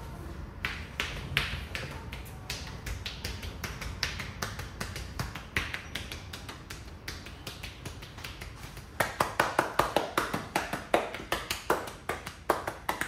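Percussive hand massage: a long series of sharp slaps and claps of hands striking the body, loosely spaced at first, then a fast, even run of about five a second near the end.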